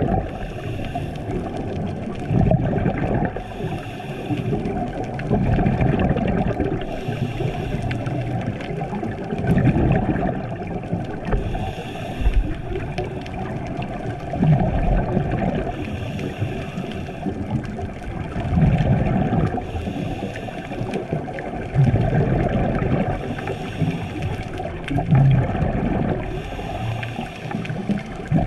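Muffled underwater sound of a scuba diver's regulator breathing: a short hiss about every four seconds, with gurgling, rumbling exhaust bubbles in between.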